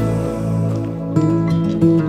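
Background music, with acoustic guitar notes coming in about a second in.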